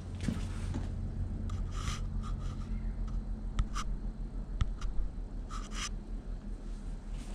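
Short, scattered rubbing and scraping handling noises, about half a dozen of them, over a steady low hum.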